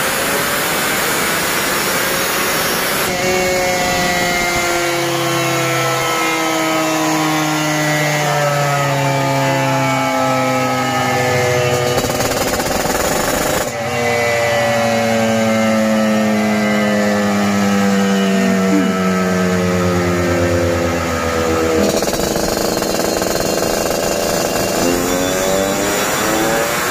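Yamaha RX-King's 135 cc two-stroke single running hard on a chassis dynamometer through its aftermarket exhaust, its pitch shifting as it is revved, with a short break about 14 seconds in before it runs on. This is a dyno run of the freshly tuned engine.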